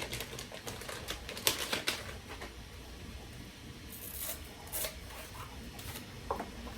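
Plastic packaging being handled and opened: irregular crinkling and rustling with small clicks, in bursts, the loudest about one and a half seconds in and again around four to five seconds.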